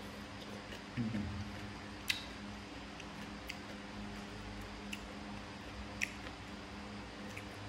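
Eating sounds from a meal taken with chopsticks: five sharp clicks, about one every second and a half, over a steady low hum. A short low sound comes about a second in.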